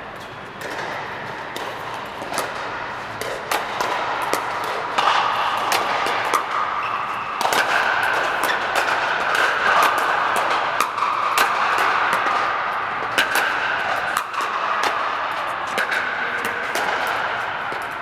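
Pickleball paddles hitting plastic balls on several courts at once: many sharp pops at irregular spacing, heard inside an air-supported dome, over a steady background din.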